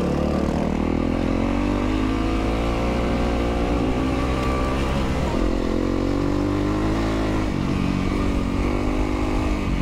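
Yamaha WR450F dirt bike's single-cylinder four-stroke engine running under way. Its pitch climbs over the first second, dips briefly around the middle and shifts again near the end.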